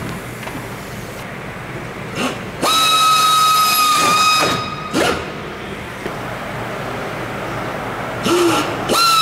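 Pneumatic pistol-grip air drill running with a steady high whine and air hiss while drilling aluminium aircraft skin. It runs once for about a second and a half, starting about three seconds in, with a short blip before and after. It starts again near the end.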